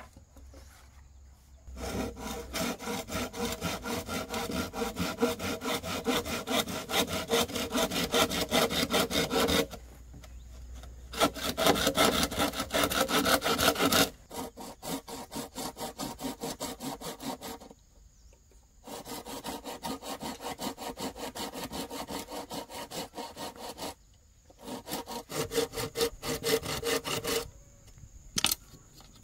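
A handsaw cutting through bamboo with quick back-and-forth strokes, in several runs separated by short pauses.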